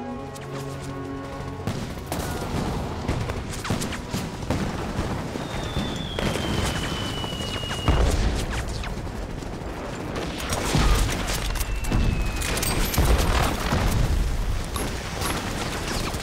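Battle sound effects: dense rifle and machine-gun fire with heavy explosions. Twice a whistle falls in pitch just before a blast, like incoming shells landing. Music is heard only in the first two seconds before the gunfire takes over.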